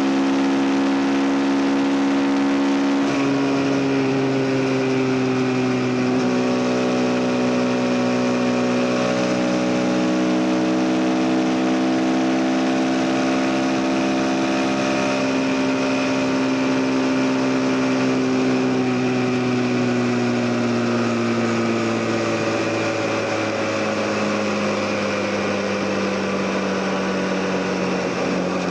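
CF Moto NK 250's single-cylinder engine running under way at a steady cruising pitch, stepping to a new pitch every few seconds as the throttle and gears change.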